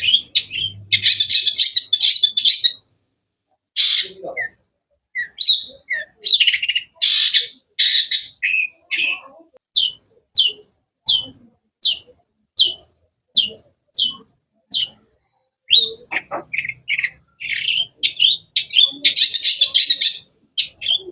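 Long-tailed shrike (cendet) singing a varied song. Harsh, grating bursts come near the start and again near the end. In the middle is a run of short whistled notes, each sliding down in pitch, about two a second.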